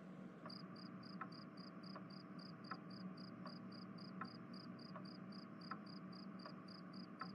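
Faint cricket chirping, a steady high-pitched pulse about four times a second that starts about half a second in, the usual night-time sound effect. A fainter tick comes about every three-quarters of a second.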